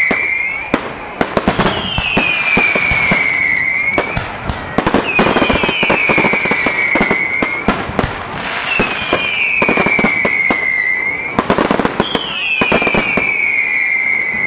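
Fireworks display: volleys of whistling fireworks, each a falling whistle about two seconds long that comes four times, amid dense crackling and scattered heavier bangs from bursting shells.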